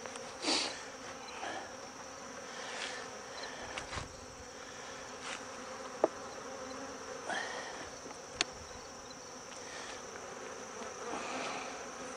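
Honeybees buzzing steadily around an open hive, with a few louder buzzes of single bees flying close past. Two sharp clicks in the second half come from the wooden frames and hive tool being handled.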